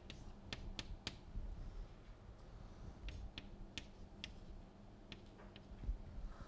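Chalk tapping and clicking against a blackboard during writing: a string of faint, sharp clicks, in a cluster about a second in and another from about three to five seconds in.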